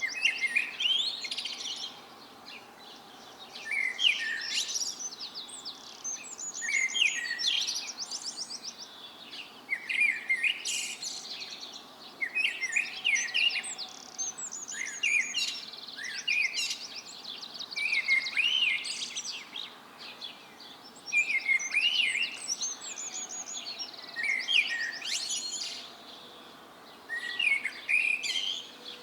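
Songbirds singing in a dawn chorus: a new song phrase every two to three seconds, mixing rapid trills with quick whistled notes.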